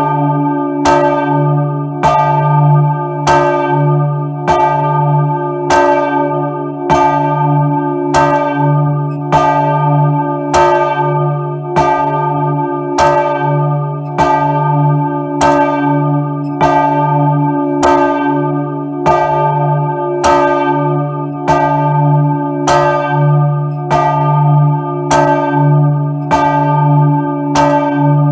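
The large church bell "Maria", swung by hand on a rope, its clapper striking about once a second in an even rhythm. Each loud strike rings on with a deep hum that carries into the next, heard close up inside the bell chamber.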